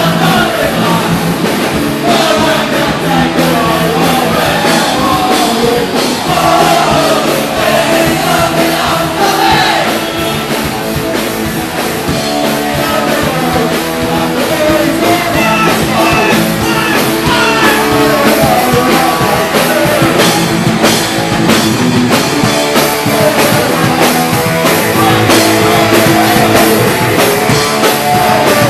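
Oi! punk rock band playing a loud song with drums, electric guitars and singing.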